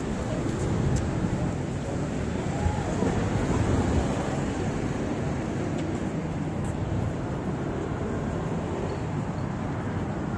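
City street ambience: steady road traffic noise from passing cars, with a few faint clicks.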